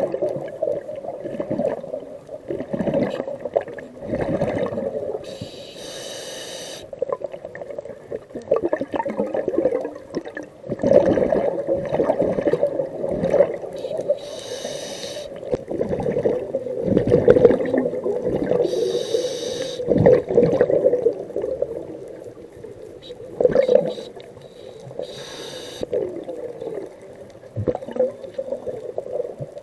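A scuba diver breathing through a regulator underwater: four drawn-out hissing breaths, with the gurgling, bubbling rumble of exhaled bubbles between and around them.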